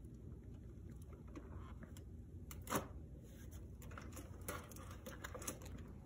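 Faint, scattered clicks and taps of fingers picking at the small cardboard doors of an advent calendar, with one louder click a little before the middle.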